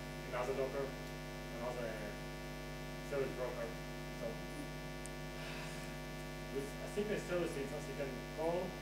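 Steady electrical mains hum on the recording, with faint, distant speech coming through in short snatches.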